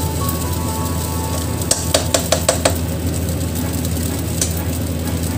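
Metal spatula stirring fried rice in a wok, with about six sharp metallic clanks in quick succession about two seconds in and one more near the end, over a steady low hum.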